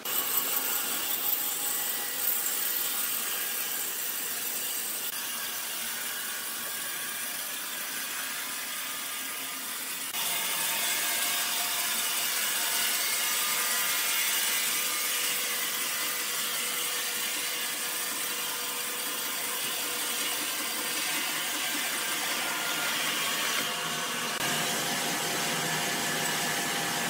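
Homemade electric horizontal band sawmill running, its band blade sawing lengthwise through a large log. The sawing is a steady noise that gets louder about ten seconds in.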